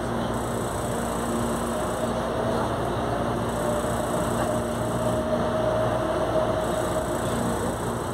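CPTM Line 11-Coral commuter train running at reduced speed, heard from inside the passenger car. A steady rumble of wheels on rail sits under a low hum, and a higher whine comes up about two seconds in and fades near the end.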